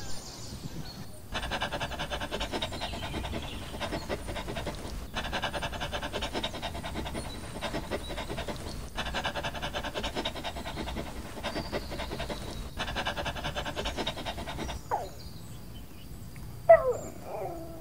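A dog panting quickly and steadily, in several stretches broken by short gaps. Near the end comes a brief, sharp dog whine falling in pitch, the loudest sound here.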